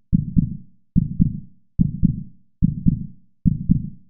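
Heartbeat sound effect: low double thumps (lub-dub) repeating steadily, about five beats in four seconds.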